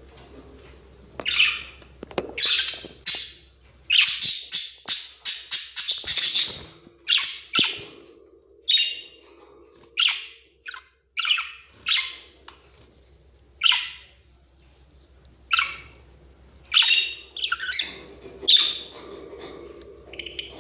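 Parrots chirping and calling, with a quick run of calls about four to six seconds in, then single calls every second or two.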